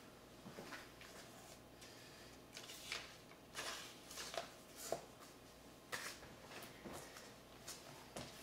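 Faint handling noises: scattered soft rustles and light knocks as a 45 rpm vinyl single is lifted off a record player and handled, over a faint low hum.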